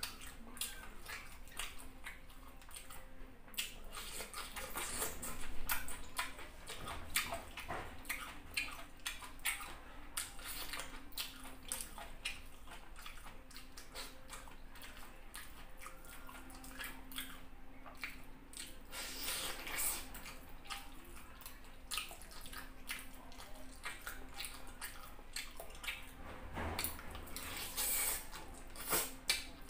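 A person eating by hand close to the microphone: wet chewing, lip smacks and squishes of soft fufu and saucy chicken, a dense run of small clicks. A faint steady low hum lies underneath.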